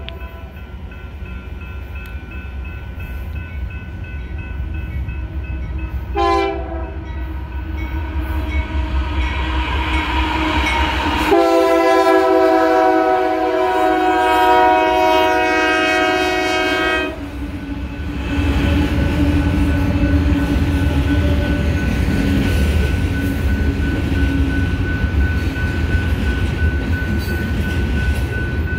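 Union Pacific 6254's air horn sounding for a grade crossing: a chord of tones, a short blast about six seconds in, then a long, loud blast from about 11 to 17 seconds. After it stops, the slow-moving locomotive and covered hopper cars rumble and clatter past on the rails.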